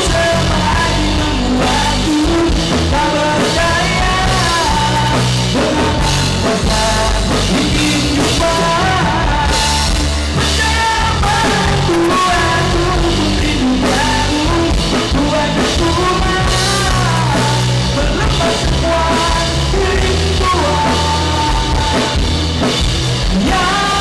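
Rock music: a singer over drum kit, bass and guitar, played at a steady loud level.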